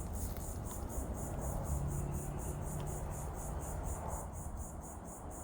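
Insects chirping in a high-pitched, even pulse of about five chirps a second, over a low background rumble with a faint hum in the middle.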